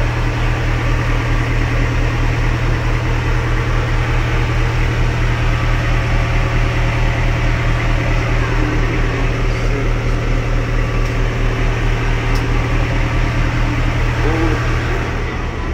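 A diesel engine idling close by, a loud, steady low hum with a regular throb, heard from inside a narrow-gauge train coach. It eases off slightly near the end.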